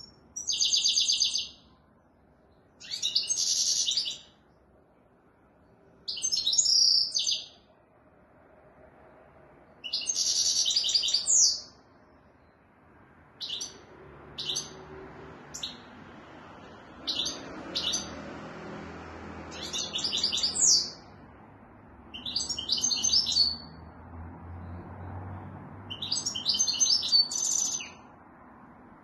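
Caged goldfinch singing: bursts of fast, high twittering song, each a second or two long, repeated every few seconds. Near the middle, a few short sharp single notes come between the phrases.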